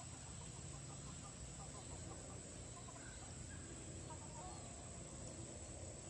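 Chickens clucking: scattered short, soft calls, thinning out toward the end, over a steady background.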